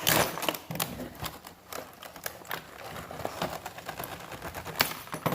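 Deadbolt lock parts being handled: irregular metallic clicks and knocks as they are taken out. The loudest clatter comes right at the start, with another sharp click near the end.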